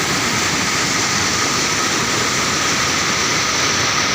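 Floodwater rushing over a rocky waterfall in a steady, loud, even rush.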